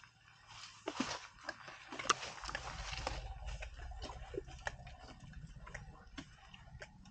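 Asian elephant moving through and feeding on vegetation: irregular snapping of twigs and crackling of leaves, densest from about a second in to about three seconds in, with a low rumble under it in the middle.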